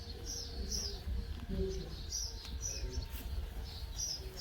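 Small birds chirping, a string of short high chirps about two a second, over a low rumble.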